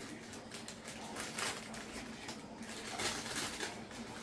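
Rustling and crinkling of plastic and paper packaging being handled and unwrapped. The rustling comes and goes, loudest about a second and a half in and again about three seconds in.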